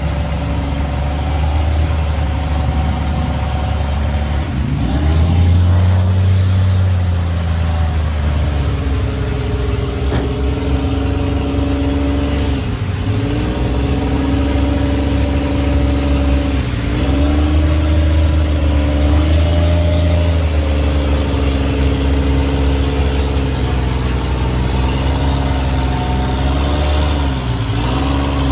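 Truck engine running and revving, its pitch dipping and rising again several times as the throttle is worked, during a winch-line recovery of a pickup stuck in a mud pond.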